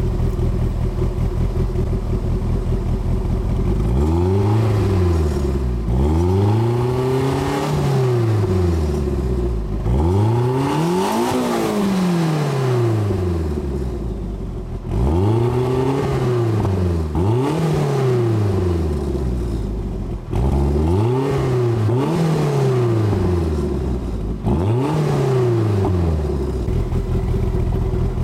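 Toyota MR2 Turbo's 3S-GTE turbocharged four-cylinder engine idling through an aftermarket Berk exhaust, then revved in about nine quick blips. Each blip rises and falls in pitch, with brief returns to idle between them, before it settles back to a steady idle near the end.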